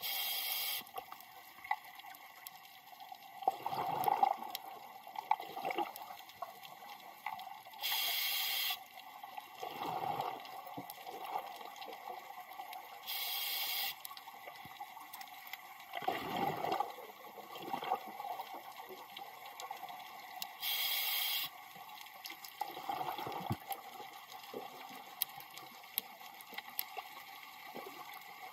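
Scuba diver breathing through a regulator underwater: a short hiss from the demand valve on each inhale, then a burst of bubbling exhaust on each exhale, four breaths at a slow, even pace.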